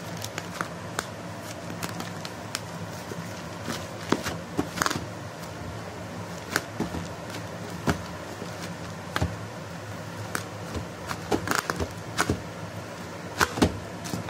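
Plastic courier mailer being cut and pulled open with a small serrated knife: irregular crinkles, rustles and sharp clicks of the plastic, with a steady low hum underneath.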